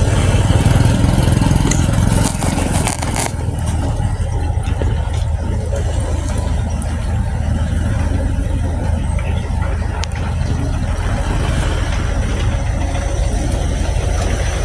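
Motor vehicle engine running with a steady low rumble and road noise, with a brief crackle about two to three seconds in.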